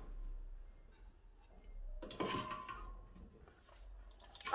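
Faint handling noises of hands working a rubber hose off a snowmobile engine: a soft knock with a short rustle about two seconds in and another small one near the end.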